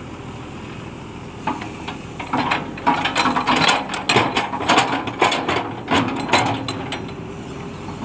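Tata Hitachi excavator's steel bucket scraping and dropping soil and stones onto a gravel edge: an irregular run of clattering and crunching that starts about a second and a half in and dies away near the end. The excavator's engine runs steadily underneath.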